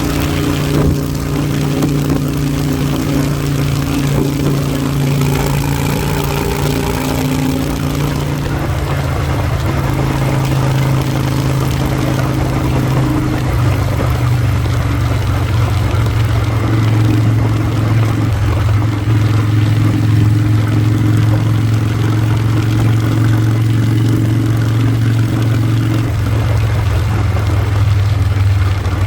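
A vehicle engine running steadily under way, its pitch stepping down about a third of the way in and shifting again near the end.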